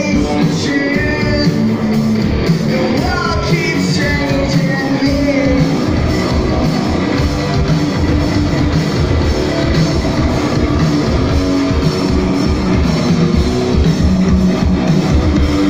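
Live rock band playing: electric guitars, bass and drums with steady drum hits, and a wavering melody line over the first few seconds.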